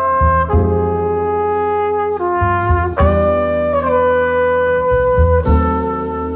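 Jazz background music: a melody of long held notes over a steady bass line.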